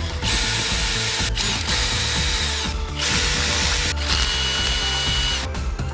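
Electric drill/driver motor running in four bursts of about one to one and a half seconds each, with a high whine over a hissing noise.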